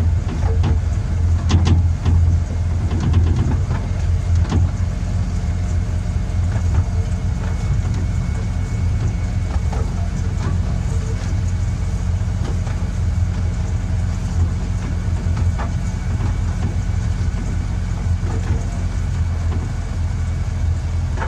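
12-inch gauge miniature railway locomotive running along the track: a steady low engine drone, with a few sharp clicks from the wheels on the rails in the first few seconds.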